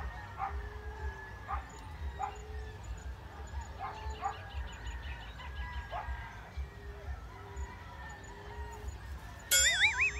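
Emerald dove cooing: low, soft coos repeating about once a second. A dog barks now and then in the background, and a loud warbling, rising call cuts in near the end.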